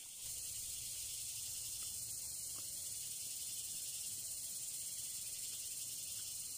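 Steady high-pitched hiss like an insect chorus, over a faint low rumble, starting abruptly just after the start and holding even throughout.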